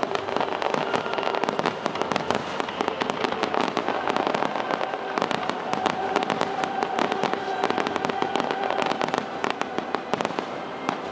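Fireworks display: a dense, continuous crackle of many rapid cracks and bangs from bursting shells.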